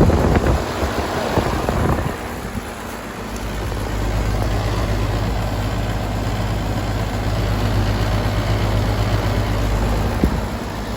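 Outdoor heat pump unit running in heat mode: its compressor gives a steady low hum under the rush of the condenser fan. A rougher rushing noise fills the first couple of seconds, and the hum fades near the end.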